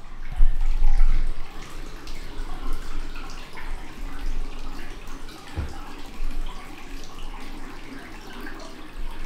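Water running from the spout into a deep bathtub, a steady splashing hiss in a small tiled room. Deep bumps about a second in and a single thump about five and a half seconds in stand out over it.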